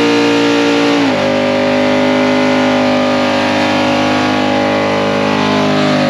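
Ford F-150 pickup's engine held at high revs in a burnout, spinning the rear tyres into smoke. The pitch dips slightly about a second in, then holds steady and loud.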